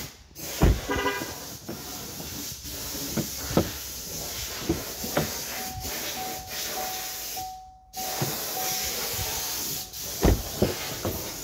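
Hand-held rustle and hiss while walking beside a parked car, with footsteps and a few sharp thumps. A faint, evenly repeating beep sounds about halfway through.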